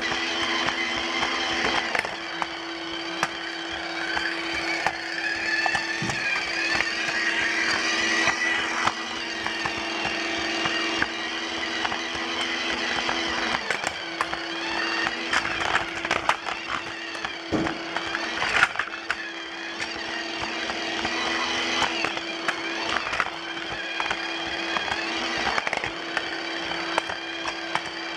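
Battery-powered Lego Duplo toy trains running on plastic track: a steady motor whine with the wheels clicking and rattling over the track.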